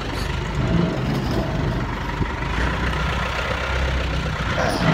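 A vehicle engine idling with a steady low hum, most likely the pickup truck that is about to be pulled forward. Clothing rustles against the microphone.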